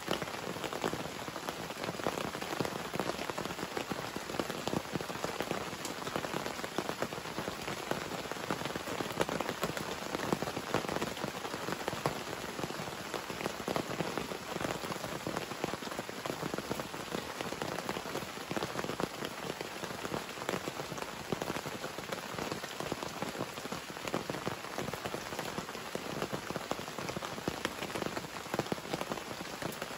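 Heavy tropical rain falling steadily, a dense, unbroken patter of drops hitting surfaces.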